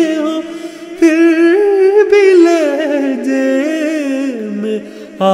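A man singing an Urdu ghazal in long, ornamented held notes, with short breaks about one second in and near the end.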